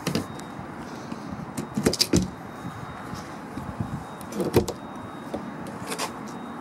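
Chrome latch handles on a motorhome's exterior storage bay doors being pulled, giving a few sharp metal clicks and rattles; the bays are locked and do not open.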